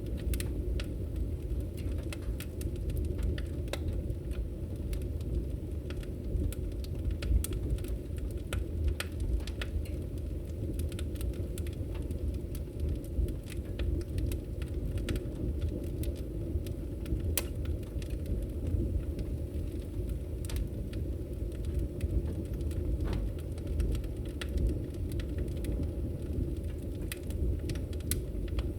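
Log fire burning: a steady low rumble of the flames with scattered sharp crackles and pops at irregular moments.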